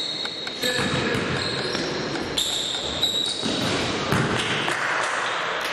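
Basketball bouncing on a gym court during a game, with short high squeaks and voices echoing in the hall.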